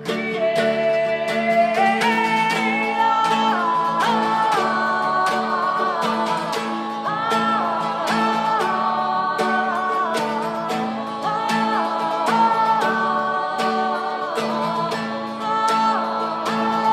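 Live acoustic guitar strumming steadily under sustained wordless vocal harmonies, the held notes gliding between pitches.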